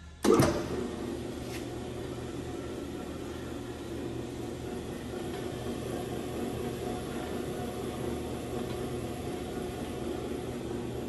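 Hobart L-800 80-quart planetary mixer switched on: a sudden loud start about a third of a second in, then the motor and gear head running steadily with a hum as the agitator turns in the empty bowl.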